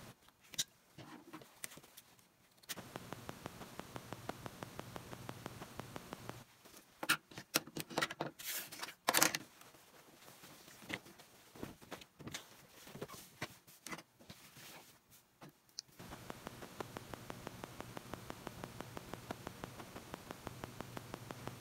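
Denim being handled and cut on a cutting mat: fabric rustling, and an acrylic ruler and rotary cutter knocking and scraping, with a burst of sharp clicks and rustles around the middle. Under it runs a faint steady background with a fast regular ticking.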